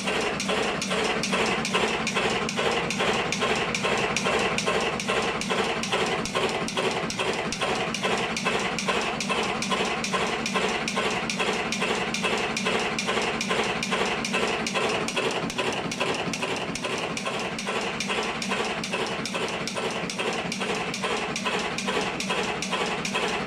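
Automatic electric cigarette-making machine running, filling tubes with tobacco: a steady motor hum with a regular mechanical clatter of about two strokes a second.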